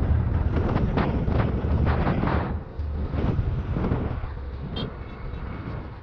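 Wind rushing over the microphone of a moving motorbike, with engine and road rumble underneath and gusty buffeting. It fades out gradually over the last two seconds.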